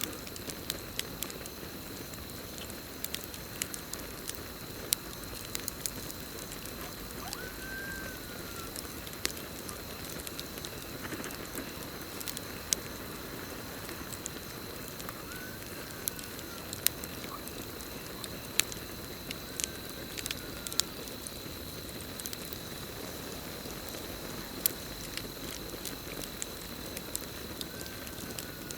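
Campfire burning with irregular sharp crackles and pops over a steady hiss, with a constant high cricket trill in the background.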